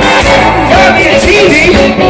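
Blues band playing live and loud: drums, bass and bending melody lines over a steady beat.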